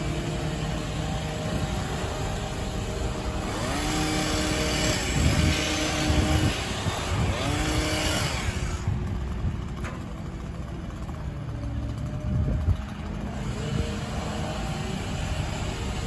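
Bucket truck engine running steadily. From about four to nine seconds in it gets louder, with a rushing noise and pitch that rises and falls several times as it revs. A single knock comes about three-quarters of the way through.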